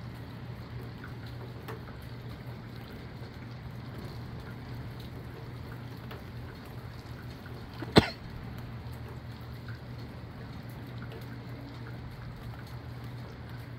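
Steady rain and wind noise with scattered faint drip ticks, and a steady low hum underneath. One sharp, very short click about eight seconds in.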